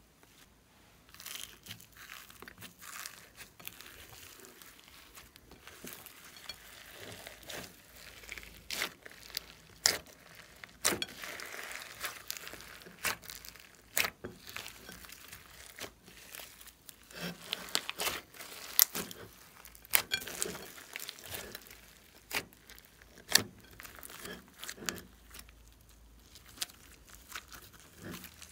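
Hands squishing, folding and stretching glossy slime loaded with glitter, sequins and clay: wet crackling with many sharp, irregular clicks and pops.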